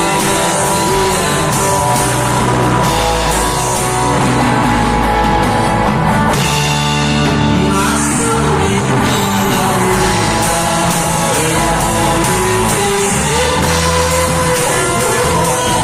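Live worship band playing a song, with rock-style electric guitar and drums and a voice singing over them.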